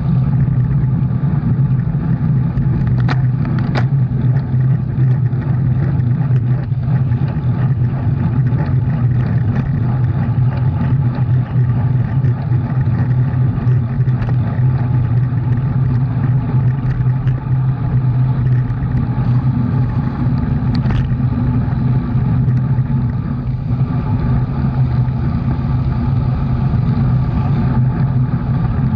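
Steady drone of a motor vehicle's engine running at an even speed, with a few brief clicks about three to four seconds in and again about twenty seconds in.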